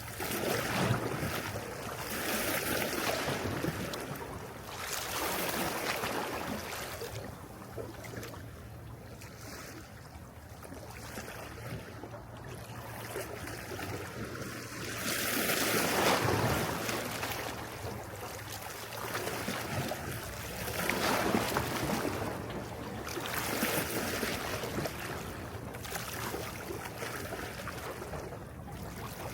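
Sea waves washing onto the shore, surging and falling back every few seconds, with the largest wash about halfway through.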